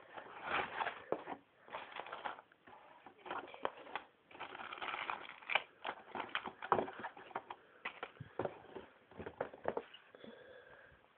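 Cardboard Lego set box being opened by hand: irregular crackling and rustling of cardboard and packaging, with small clicks and taps.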